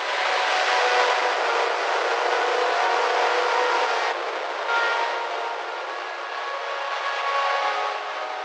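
Harsh-noise track built from manipulated television broadcast audio: a dense wall of hiss with several steady whistle-like tones held inside it and no bass. It thins briefly about four seconds in.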